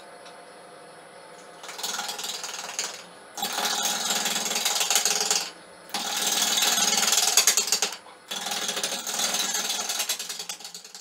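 Wood lathe running with a steady motor hum, then a gouge cutting into a spinning red carob (algarrobo colorado) log in four passes, each a loud, rough scraping lasting about two seconds.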